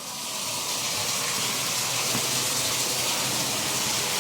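Steady rush of water running through household plumbing fixtures, as the water supply is turned back on after a toilet tank rebuild.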